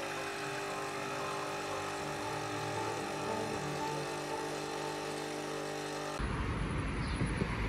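Espresso machine pump humming steadily as a shot pours into a glass. About six seconds in it cuts off abruptly and gives way to city street noise with passing traffic.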